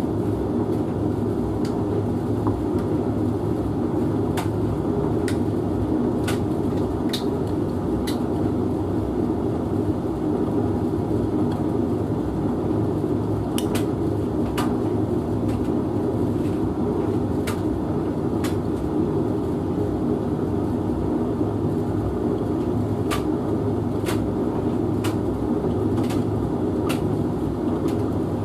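Hotpoint Futura HF8B593G washing machine and Hoover VHV68C tumble dryer running together: a steady hum and rumble from the motors and turning drums, with sharp clicks every second or so.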